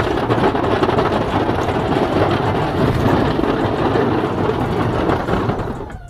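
Pickup truck with a Boss DXT V-plow pushing snow: a steady, loud rush and scrape of the blade through snow over the truck's engine, easing off near the end as the truck stops at the wall.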